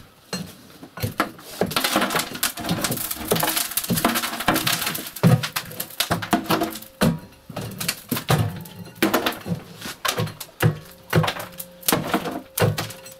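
Scraping, knocking and clattering at a brick stove's flue cleanout as soot and pieces of brick are dug out by hand and tool: a long run of sharp knocks and thuds with a stretch of rough scraping early on.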